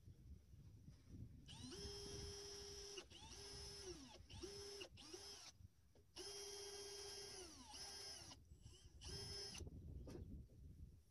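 Cordless drill-driver running in about seven short bursts, each a steady whine that drops in pitch as the trigger is let go, as it drives fasteners along the edge of a lane gutter.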